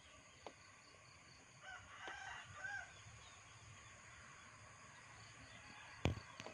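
A rooster crows faintly once, starting about one and a half seconds in and lasting about a second and a half, over a quiet open-air hiss. Near the end there is a single sharp knock, the loudest sound.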